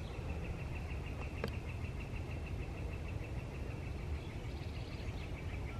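A high, rapidly pulsing animal trill that runs on without a break, over a steady low rumble, with one sharp click about a second and a half in.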